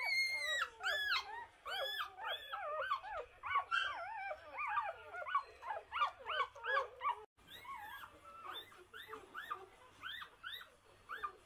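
A litter of newborn Portuguese Water Dog puppies squealing and whimpering, many short high rising-and-falling cries overlapping several times a second. The cries grow softer and sparser in the second half.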